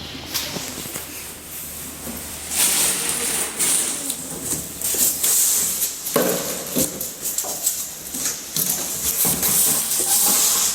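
Irregular rustling and handling noise with a lot of hiss, growing louder about two and a half seconds in, with scattered clicks and knocks.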